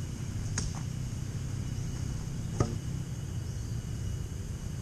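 Steady low rumble of outdoor background noise, with a few faint clicks about half a second and about two and a half seconds in.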